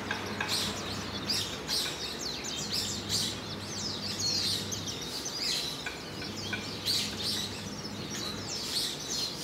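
Japanese white-eyes calling: many short, thin, high chirps in quick succession, each sweeping down in pitch, over a faint steady low hum.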